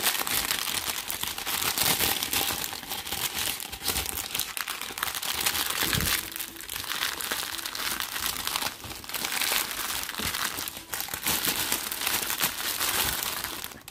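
Thin clear plastic zip bags crinkling and rustling as they are handled and packed away, with short pauses.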